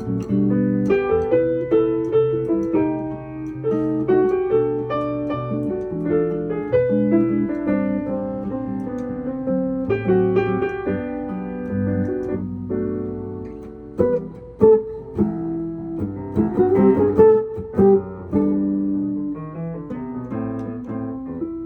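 Piano playing an instrumental piece: held chords in the low register under a melody, with a few sudden loud accents and a quick upward run in the last third.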